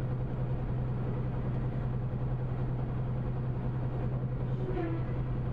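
Semi truck cruising at about 70 mph, heard from inside the cab: a steady low engine drone with even road and tyre noise.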